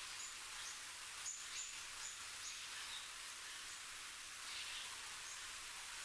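Steady high hiss of outdoor background with a few faint, short, high-pitched chirps of small birds, mostly in the first half.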